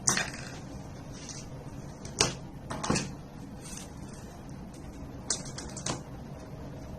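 A handful of sharp clicks and knocks, one at the start, two or three around two to three seconds in and a short cluster near six seconds, as tools and small parts are handled on the bench.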